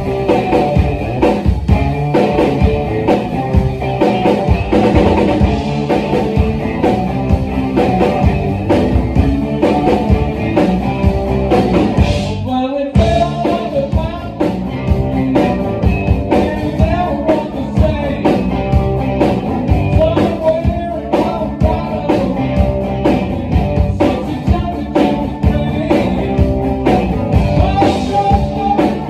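Live rock band of guitars, bass guitar and drum kit playing a song at a steady beat, just after the count-in, with a brief break about twelve and a half seconds in.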